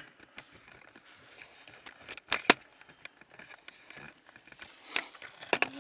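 Handling noise of a camera being pushed into a narrow hole in rock: a few sharp knocks and scrapes of the camera against the stone, the loudest about two and a half seconds in.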